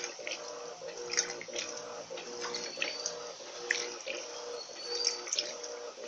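Electrolux Turbo LT12B top-loading washing machine agitating a full tub: the motor hums in short strokes, about two a second, as the agitator swings back and forth. Water sloshes and splashes through the clothes.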